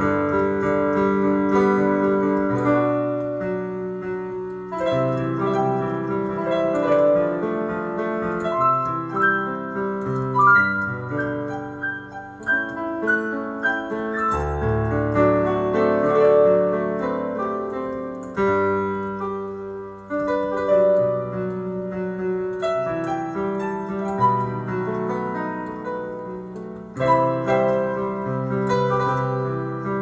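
Digital piano played solo: a melody over held chords and bass notes, with no singing.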